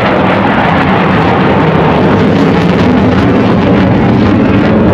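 Eurofighter Typhoon fighter jet's two EJ200 engines running in full reheat (afterburner): a loud, steady jet roar.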